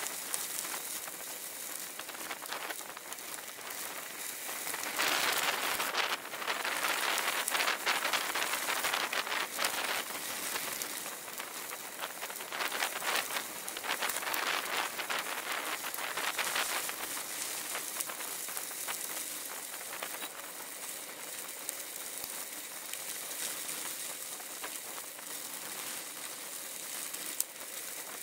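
Bicycle tyres rolling over a loose gravel road, a dense steady crackle of many small ticks. It grows louder about five seconds in and again around twelve seconds in.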